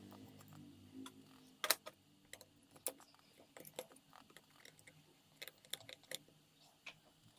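Faint, scattered small clicks and taps of tools and parts being handled while an iPhone 6 is worked on, irregular and a few seconds apart.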